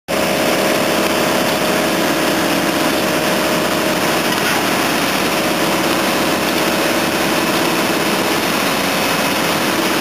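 Asphalt paver's diesel engine running steadily under load as the machine lays asphalt, a continuous loud engine noise with no breaks.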